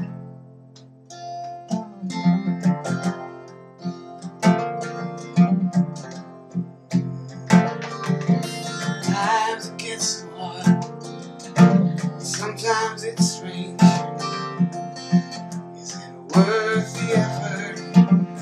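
Acoustic guitar strummed in an instrumental passage of a folk song; it drops low about a second in, then the chord strumming picks back up and carries on.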